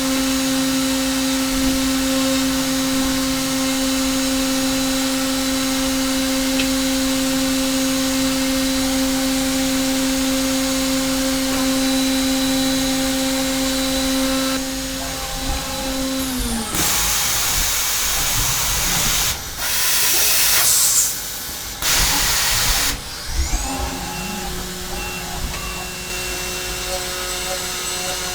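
Hermle C400 CNC milling machine's spindle running at a steady high speed with a chamfer mill cutting dry aluminium, then winding down about 16 s in. Loud hissing blasts of air follow several times during the tool change, and the spindle comes up to a new, different steady speed near the end for the back-chamfering tool.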